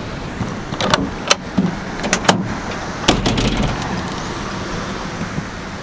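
A handful of sharp clicks and knocks as the rear canopy door of a ute is unlatched and opened, over a steady background hiss.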